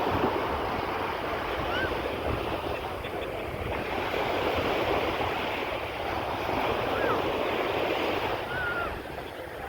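Sea waves washing onto a beach, a steady rushing wash, with wind buffeting the microphone.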